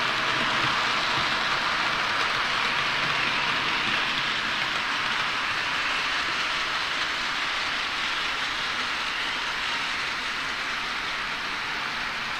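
H0-scale model goods train rolling along the track: the wagons' wheels on the rails give a steady hiss that fades slightly as the train moves off.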